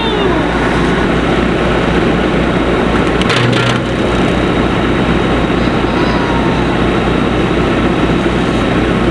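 Kubota tractor running with its PTO-driven bush hog's blades spinning: a loud, steady mechanical din. A brief sharp crack about three and a half seconds in.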